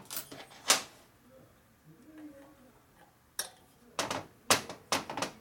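Steel hand wrenches clinking against each other and against the aluminium panhead cylinder head on a workbench. A couple of sharp clinks come at the start, then a quick run of clinks from about three and a half seconds in.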